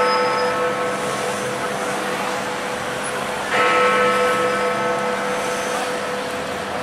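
Big Ben, the Great Bell of the Westminster clock tower, striking six o'clock. One strike comes about three and a half seconds in, while the ringing of the previous strike dies away before it, over steady traffic noise.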